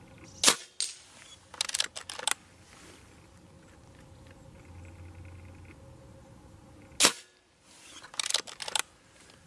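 Two shots from a .22 (5.5 mm) Reximex Zone regulated PCP air rifle, each a sharp crack, about six and a half seconds apart; a fainter knock follows the first shot. About a second after each shot comes a quick run of metallic clicks as the rear cocking lever is worked to load the next pellet.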